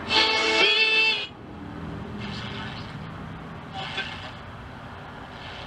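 Restored Temple G419 four-tube AM radio playing a broadcast, working again after restoration. It opens with a loud burst of pitched sound with gliding tones in the first second, then faint, indistinct talk over steady hiss.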